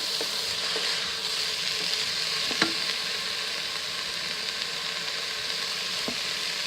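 Pork cubes and chopped onions sizzling steadily in a pressure cooker's pot on the sauté setting while being stirred, with a few sharp clicks of the utensil against the pot, the loudest about two and a half seconds in.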